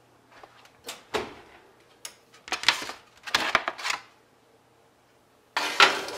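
Kitchen handling noises as an old tin baking sheet is carried to the oven and the oven door is opened: a few knocks, two clattering stretches in the middle, and a louder clatter near the end.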